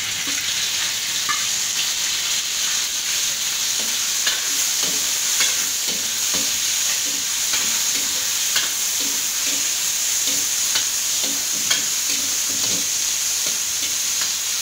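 Sliced raw chicken sizzling as it fries in a few tablespoons of hot oil in a large wok, under a steady hiss. A metal ladle repeatedly scrapes and knocks against the wok as the chicken is stirred.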